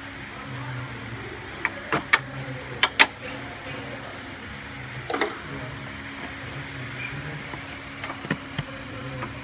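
Sharp clicks and knocks over a steady low hum: a quick cluster about two to three seconds in, then a few more scattered later.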